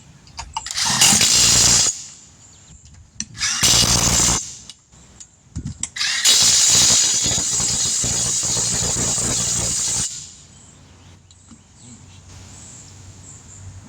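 Impact wrench running lug nuts onto a spare wheel in three runs: about a second, then a shorter one, then a steady four-second run from about six seconds in.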